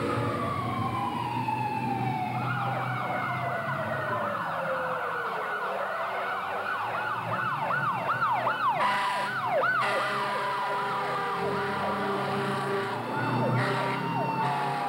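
Fire engine sirens, several at once and overlapping: slow wails that sweep up and fall away, and from about two seconds in a fast yelp rising and falling about three times a second for several seconds before the slow wails take over again.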